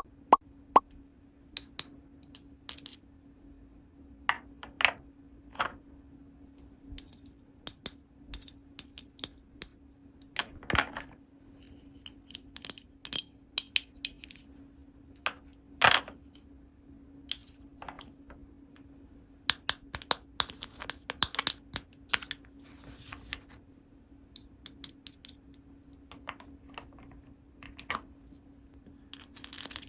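Small hard plastic toy pieces being handled, with irregular sharp clicks and taps as they knock together and are set down, a couple of louder knocks among them. A faint steady hum runs underneath.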